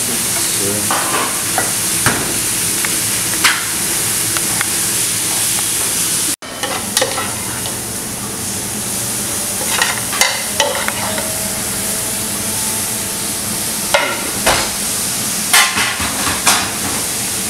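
Commercial kitchen noise: a steady hiss with scattered clinks and knocks of pans and utensils. The sound cuts out for an instant about six seconds in.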